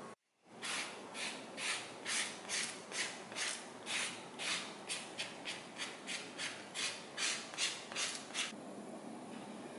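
Saffiano leather edge being sanded by hand with brisk back-and-forth strokes, about two to three rasping rubs a second, stopping shortly before the end: the edge being smoothed before edge paint.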